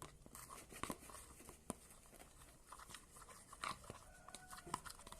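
Glue-and-cornstarch slime being stirred in a bowl with a spoon: a few faint, scattered clicks and scrapes.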